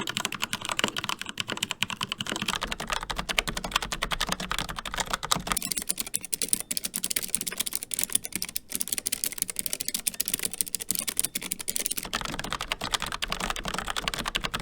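Continuous fast typing on a Keychron K4 mechanical keyboard with Gateron Brown switches. About six seconds in, it switches to typing on a Keychron K3 low-profile keyboard with clicky Keychron Optical Blue switches, which sounds thinner and brighter.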